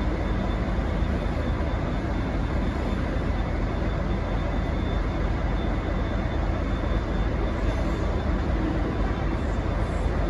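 V/Line N class diesel-electric locomotive's EMD V12 two-stroke diesel engine running steadily, with a couple of faint steady whining tones over it.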